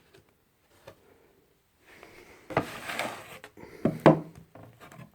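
Cardboard smartwatch box being handled and opened: a rustle and scraping of the packaging, with several sharp knocks and taps about three to four seconds in.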